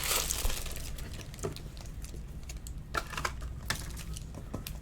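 Scattered light clicks and taps, with a brief rustle at the start.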